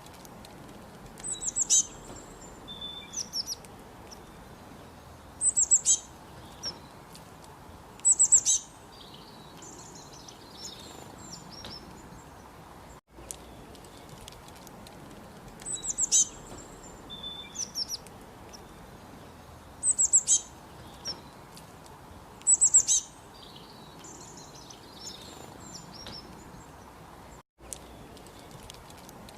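Small birds chirping in short, very high bursts of rapid notes a few seconds apart, over a faint steady hiss. The same sequence of chirps plays twice, as a loop.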